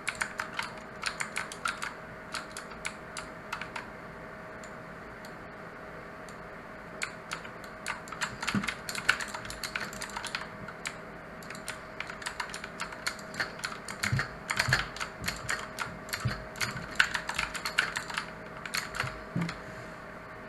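Mechanical keyboard with clicky blue switches being typed on: bursts of quick keystroke clicks with pauses of a few seconds between them. A faint steady tone runs underneath.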